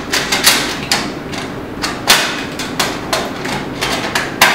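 Irregular sharp knocks and clicks of a sheet-metal tray being fitted against a photo booth's metal door panel, the loudest knock near the end.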